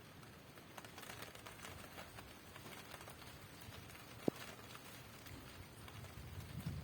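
Rain falling in scattered pattering drops, with one sharper drip knock about four seconds in. A low gust of wind swells near the end.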